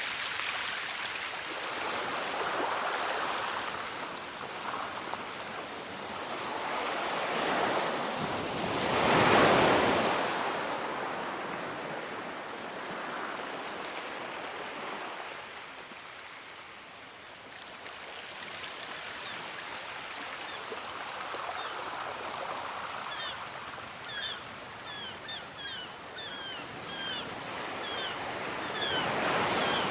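Ocean surf: waves washing in and drawing back in slow surges, the biggest breaking about nine seconds in. In the last few seconds birds chirp rapidly over the surf.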